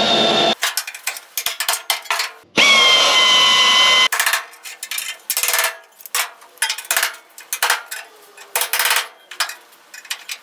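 Cordless drill boring out spot welds in car-body sheet metal, whining briefly at the start and again for about a second and a half from about 2.5 s in. Between and after the drilling come irregular sharp metallic hammer blows as the welded seam of the quarter panel is knocked apart.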